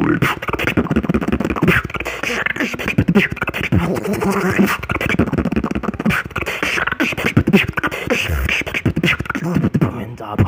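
Solo human beatboxing: a fast, unbroken run of mouth-percussion clicks and hits mixed with short pitched vocal tones, picked up close by a handheld earphone microphone.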